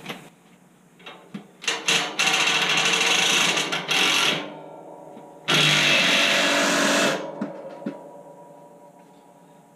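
Cordless impact wrench hammering a nut down in two runs, about two seconds and then about a second and a half, with a few sharp clicks before the first.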